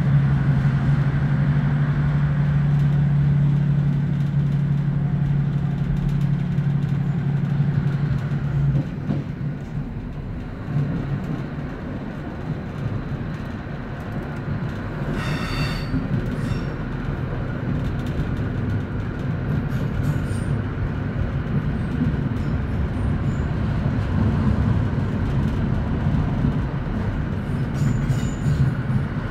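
Inside a Class 156 diesel multiple unit on the move: the underfloor Cummins diesel engine hums steadily, and its note stops about nine seconds in as the train coasts on, leaving the rumble of wheels on rail. A short high-pitched squeal comes about halfway through.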